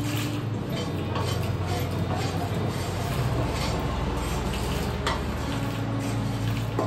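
Wooden spatula scraping dry-roasted spices out of a nonstick pan into a small steel jar, with light scrapes and clinks over a steady low hum.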